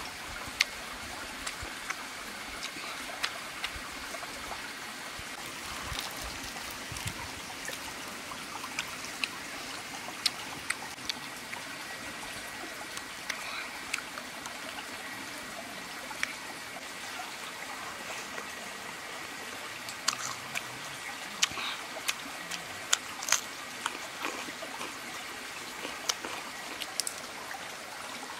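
A steady rushing hiss like running water, with scattered short sharp clicks and taps, more of them in the second half.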